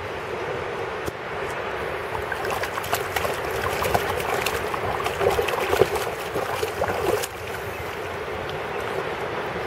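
A small dog splashing with its muzzle and paws in shallow seawater, digging at the sand around a stick. The splashing picks up a few seconds in, is loudest a little past the middle, and stops abruptly near the end, over a steady rush of wind on the microphone.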